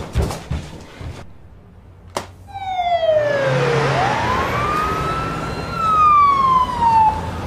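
Ambulance siren wailing: one slow tone that slides down, sweeps back up and holds, then slides down again, over a steady noise. Before it come a few light knocks and a sharp click about two seconds in.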